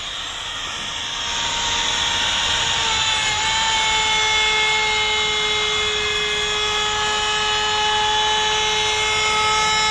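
Makita 18V brushless cordless compact router running steadily at high speed, a loud even whine that settles slightly in pitch about three seconds in.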